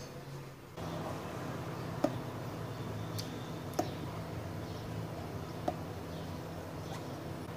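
Sour cherries being stemmed by hand: a soft rustle of stems with three light taps as single cherries drop into an empty bowl, over a steady low hum.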